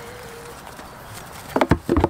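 Goat's hooves landing on a black tub as it jumps up onto it: a quick run of several sharp knocks about one and a half seconds in.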